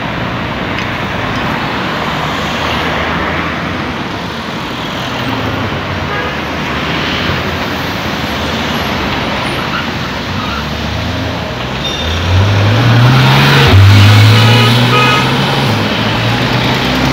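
Road traffic passing steadily. About twelve seconds in, a sports car's engine note rises loudly as it accelerates, dips briefly as if at a gear change, then holds loud before easing off.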